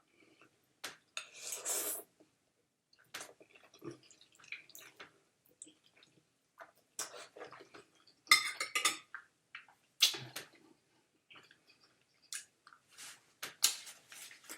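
Cutlery clinking and scraping against a dish while eating spaghetti, in irregular short sounds with quiet gaps between them. The loudest is a cluster of scrapes a little past the middle.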